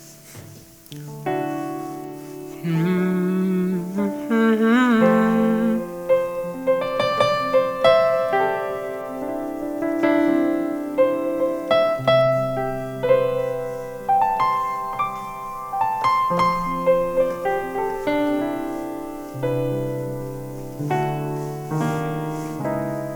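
Piano keyboard playing a slow run of held chords that change every second or two. A brief wavering hum comes in a few seconds in.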